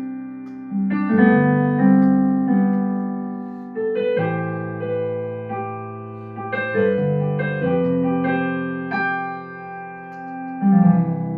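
Acoustic grand piano voice on a Yamaha MOXF6 synthesizer, played as a slow run of sustained chords, a new chord struck every second or two and left to ring and fade.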